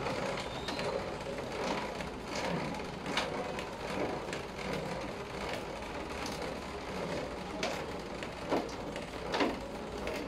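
Mini hand bicycle pump being handled: small clicks and scrapes as its flexible hose is screwed onto the pump head. Near the end come three short strokes about a second apart as the pump is worked, over a steady background hiss.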